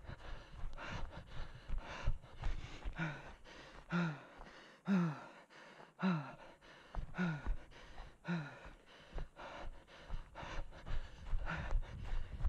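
A runner's hard, voiced out-breaths, each falling in pitch, about one a second through the middle, over a steady patter of running footsteps on dry, needle-covered forest floor.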